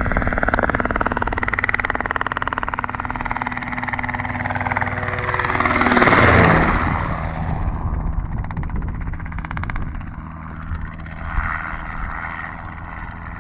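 Robinson R22 helicopter flying low overhead: the rapid chop of its two-bladed rotor and its engine grow louder as it comes in. About six seconds in it peaks in a loud rush as it passes directly over, and the pitch drops. After that it eases to a steadier, quieter drone as it flies away.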